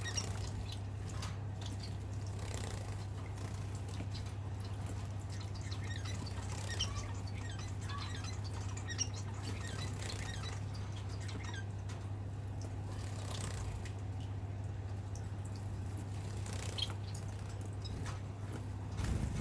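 Society finches (Bengalese finches) bathing: light splashes and patter in water, with scattered short high chirps, over a steady low hum.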